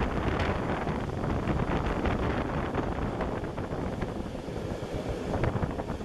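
Wind buffeting the microphone at the window of a moving passenger train, over the train's steady running noise, with frequent short clicks and rattles.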